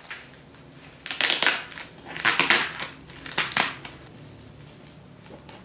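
Plastic bubble wrap around a box crinkling and crackling as it is handled and pulled at, in three short bursts about a second apart.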